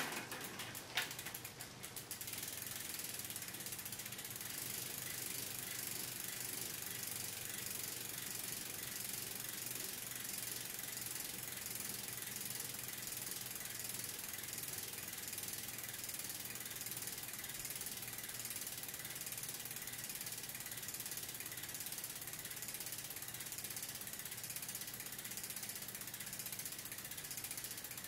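A few sharp clicks in the first second or so, then the Salsa Fargo's rear freehub buzzing steadily as the rear wheel spins freely, its pawls ratcheting.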